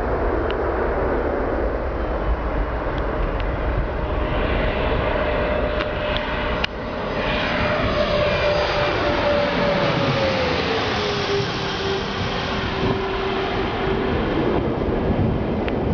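Bombardier CRJ regional jet flying overhead: a steady jet rush with a whining engine tone that drops in pitch about ten seconds in as the aircraft passes, with sweeping tones in the rush around the pass.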